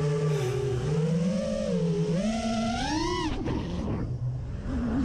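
FPV quadcopter's brushless motors and propellers whining, the pitch rising and falling with the throttle. A little after three seconds in the pitch climbs sharply, then the sound drops away as the throttle is cut, and the motors spool up again near the end.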